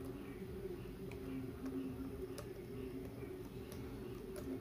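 A handful of separate key presses on a Lenovo ThinkPad L540 laptop keyboard, soft clicks roughly a second apart, over a steady low hum.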